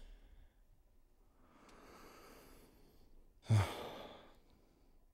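A man breathing heavily and sighing: one long, soft breath, then a sharper, louder breath about three and a half seconds in.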